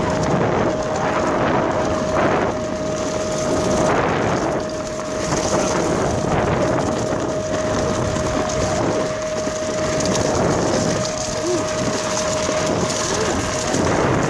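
Fiik Big Daddy electric skateboard riding over a rough dirt trail: a continuous rumble of the wheels on dirt and leaf litter, with wind buffeting the microphone and a steady motor whine.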